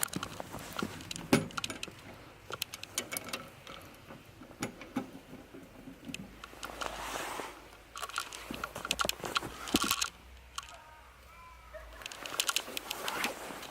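Scattered light metallic clinks and knocks, with rustling handling noise between them.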